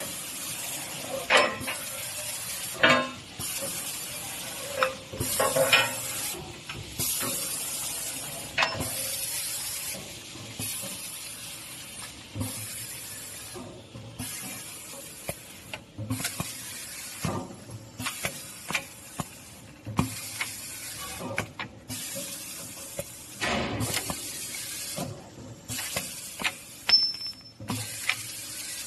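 Automatic bolt-chamfering machine cycling. Its pneumatic grippers and cylinders give short bursts of compressed-air hiss about every second or two, and sharp metal clanks come as steel bolts are fed and clamped.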